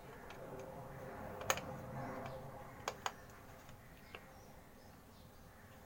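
Small sharp clicks and taps of a screwdriver working the screws out of a plastic multimeter case, about four scattered clicks, two of them in quick succession about three seconds in.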